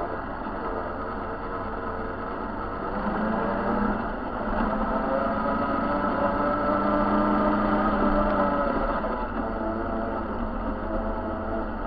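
A motor vehicle's engine running as it drives along a dirt track, its note rising and getting louder about halfway through, then easing off near the end.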